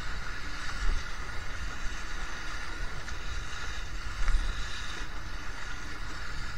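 Wind buffeting the microphone over the steady rush of water along a Laser 2 sailing dinghy's hull under sail in strong wind, with two louder gusts of rumble on the microphone, about a second in and just past four seconds in.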